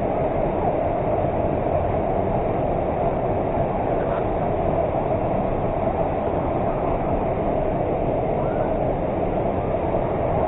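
Waterfall: a steady rush of falling water that does not change in level.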